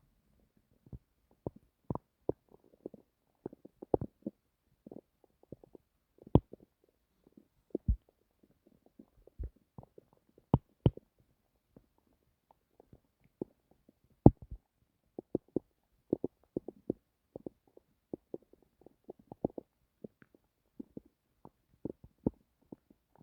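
A person's stomach gurgling and rumbling: a string of irregular short pops and gurgles, some louder than others.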